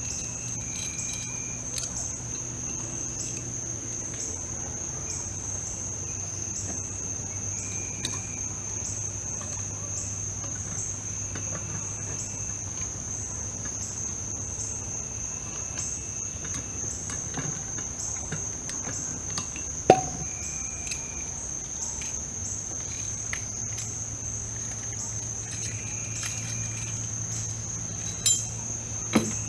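Night-time insect chorus: a steady, high-pitched, pulsing trill. A single sharp knock about two-thirds of the way through, and a few small knocks near the end.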